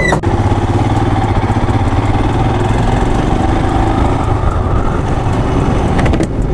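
Motorcycle engine running steadily while the bike is ridden along the road, with a continuous rush of road and wind noise.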